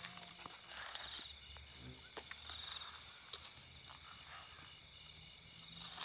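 Irregular rustling and crackling of dry grass and leaves as someone moves through the undergrowth, over a steady high chirring of night insects.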